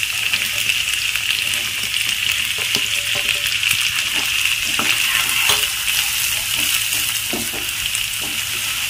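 Freshly added chopped onions sizzling steadily in hot oil as they start to sauté, stirred with a wooden spatula that knocks and scrapes against the pan now and then.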